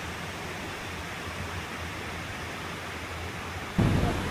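Steady rush of water running into a small pond from the pond next to it. Near the end it turns suddenly louder and deeper.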